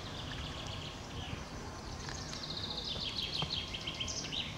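A songbird singing: a brief high phrase at the start, then from about two seconds in a fast run of repeated high notes that steps down slightly in pitch for about two seconds. Under it is a steady low rumble.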